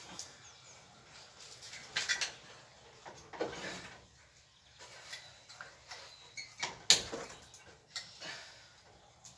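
Intermittent scraping, rattling and knocking of metal parts being handled while an air conditioner's fan motor is worked loose from its fan. The loudest sound is a single sharp click about seven seconds in.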